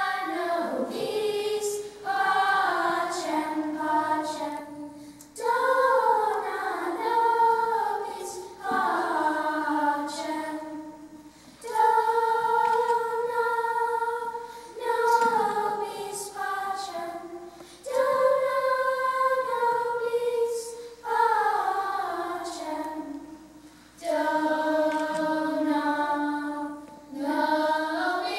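Children's choir singing a cappella in sung phrases of about three seconds each, with short breaks between phrases.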